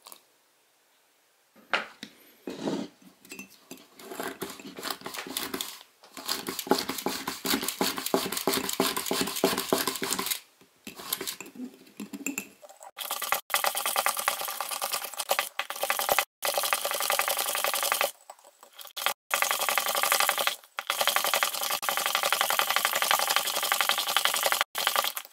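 A small coil whisk spun fast in a ceramic mug, rattling and scraping against the sides as instant coffee, sugar and water are whipped. The rattling is continuous and rapid, broken by a few short gaps. A spoon stirs against the mug at the start.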